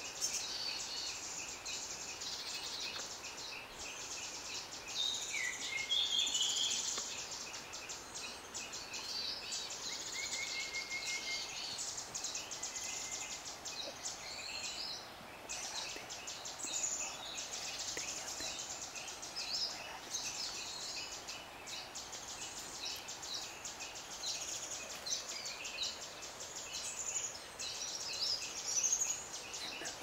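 Forest ambience: several birds chirping and whistling with short, varied notes, over a constant fast-pulsing high insect buzz.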